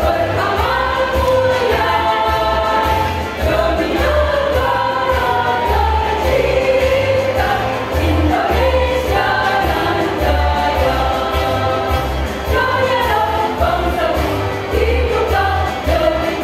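Women's choir singing a song in several parts with long held notes, over a low bass line.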